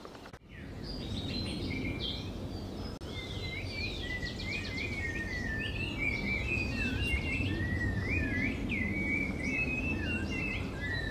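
Many birds chirping, whistling and trilling together over a steady low background rumble, coming in after a brief drop about half a second in.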